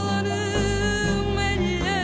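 Background music: a melody holds one long note, which wavers near the end, over a steady backing.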